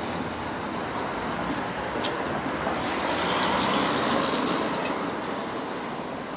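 Street traffic noise: a steady hiss of passing cars, swelling as a vehicle goes by about three seconds in and then fading.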